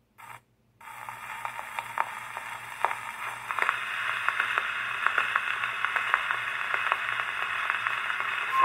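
Needle of an acoustic upright cabinet phonograph set down on a spinning 78 rpm record: a brief scratch as it touches down, then the lead-in groove's surface hiss with scattered clicks and crackles that grows louder.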